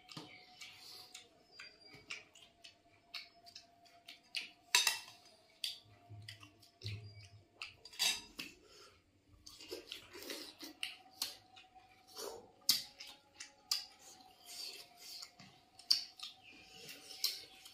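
Two people eating rice and fish curry by hand close to the microphone: a run of short wet smacks and clicks from chewing, lips and fingers working the food on ceramic plates, over a faint steady hum.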